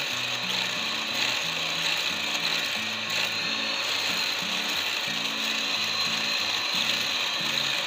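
Electric hand mixer running steadily, its beaters whisking two eggs in a glass bowl.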